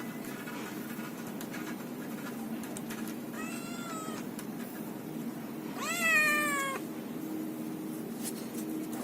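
A kitten meowing: a shorter, fainter meow about three and a half seconds in, then a louder meow around six seconds that rises and then falls in pitch.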